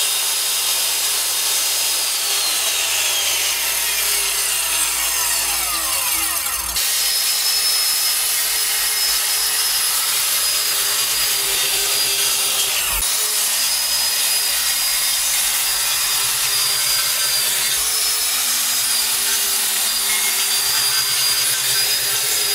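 Corded circular saw running and cutting through a wooden van floor, with the blade set shallow so it cuts only the wood and not the metal beneath. It makes a steady loud saw whine whose pitch falls a couple of times.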